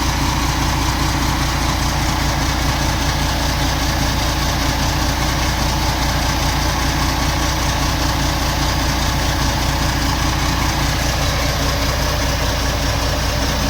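Large vehicle engine idling steadily.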